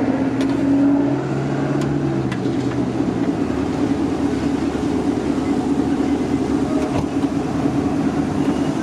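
A motor vehicle's engine running steadily, with a few faint clicks.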